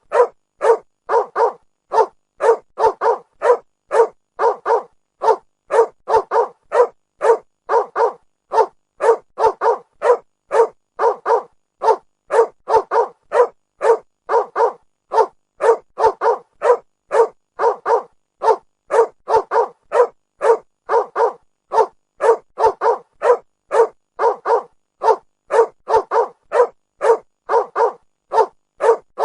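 A dog barking over and over in a steady, even rhythm, about two barks a second, with short silences between barks.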